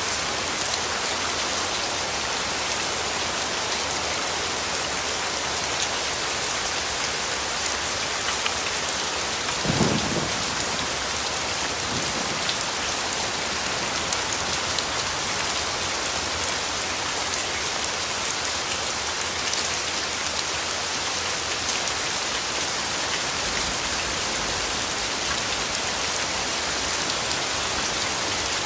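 Steady rain falling, an even hiss of many drops. About a third of the way in comes one brief, louder low rumble, with a fainter one a couple of seconds later.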